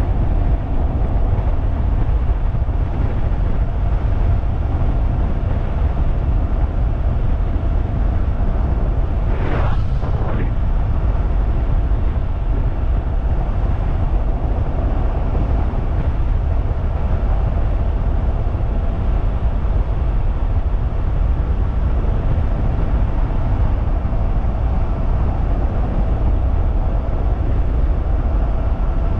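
Heavy wind rush on the microphone of a DIY 3000-watt electric bike riding at speed, over a faint steady whine from its electric motor. About ten seconds in, a brief sound sweeps up and back down in pitch.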